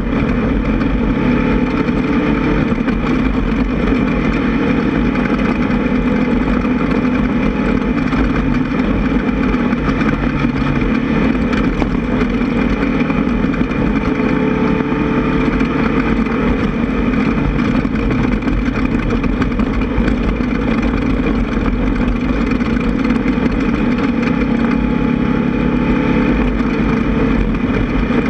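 Air-cooled 1600 cc VW engine of a Class 1600 off-road race buggy running hard at speed, its pitch rising and falling a little with the throttle, over a constant low rumble and rattle.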